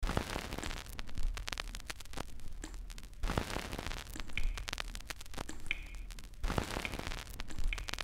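Crackling, hissing noise full of irregular sharp pops and clicks, like static.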